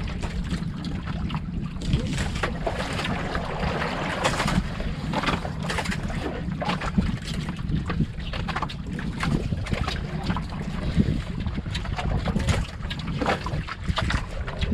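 Steady low rumble of wind and sea around an outrigger fishing boat, with scattered light knocks and clinks from plates on the deck as people eat.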